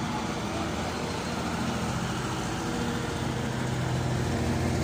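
Engine of a vintage six-wheeled army lorry running steadily as it drives slowly past, a low even engine note with the rest of the convoy's engines behind it, growing slightly louder near the end.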